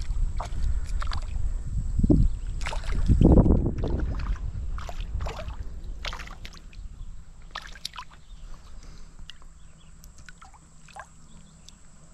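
River water sloshing and splashing close to the microphone, with a low rumble under it, busiest in the first few seconds and settling to scattered small splashes and drips.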